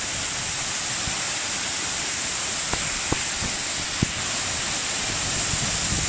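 Waterfall: a steady rush of water falling over a wide rock lip and splashing onto boulders below. Three short knocks come around the middle.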